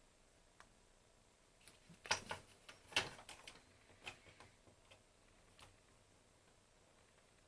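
A run of small clicks and knocks, the loudest two about a second apart, from the plastic parts of a BeoCom 2 telephone being handled and fitted together.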